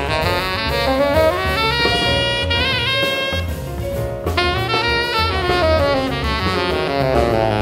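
Tenor saxophone playing a jazz solo line over double bass and drums: a rising run into a held note with vibrato, then a new phrase about four seconds in.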